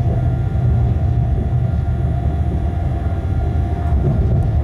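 Locomotive running light, heard from inside its cab: a steady low rumble with a faint steady whine above it.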